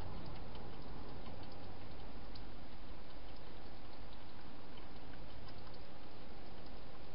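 Steady hiss from a night camera's microphone, with faint scattered ticks.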